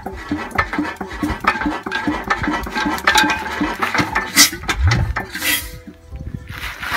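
Imperial Super Diesel hit-and-miss engine being turned over on its flywheel during a start attempt: a rhythmic mechanical clatter, about three to four beats a second, that dies away after about four and a half seconds, followed by two short hissing bursts near the end.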